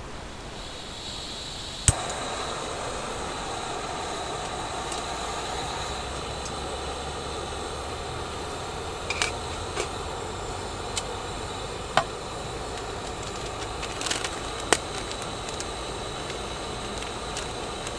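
Small gas-canister camping stove: gas hisses briefly, the burner lights with a sharp click about two seconds in, then runs with a steady hiss under a pot. A few light clicks and knocks from handling the metal cookware follow.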